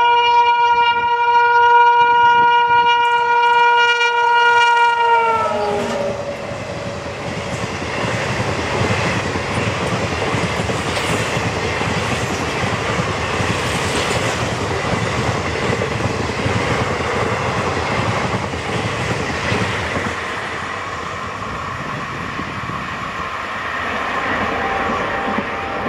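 WAP-4 electric locomotive's air horn sounding one long blast that drops in pitch as the locomotive passes at over 110 km/h and cuts off about five seconds in. Then the express's coaches rush past with a steady clatter of wheels over the rail joints, easing slightly near the end as the last coach goes by.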